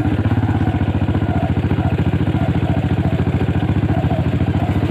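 Motorcycle engine running steadily with an even, rapid low pulsing and no change in speed.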